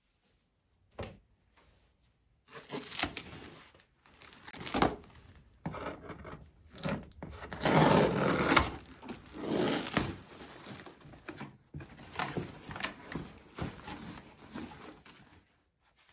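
Packaging being crinkled, rustled and torn by hand, in irregular bursts with a few sharp clicks, loudest about halfway through.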